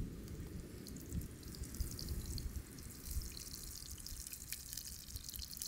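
Hands coating onion rings in wet batter in a plastic bowl: soft squelching and dripping under a low rumble. A light crackling joins in about a second and a half in.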